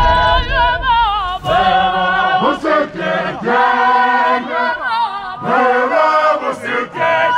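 Voices singing together in harmony, choir-like, with held notes that waver in pitch.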